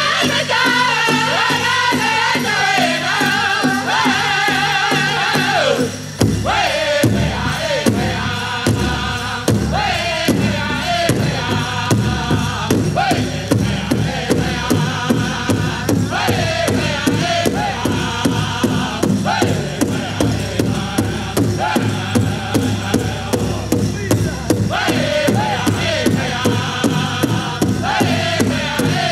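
Powwow drum group singing a contest song over the big drum: several voices sing together, and from about six seconds in the drum beats strongly and steadily, about two strokes a second.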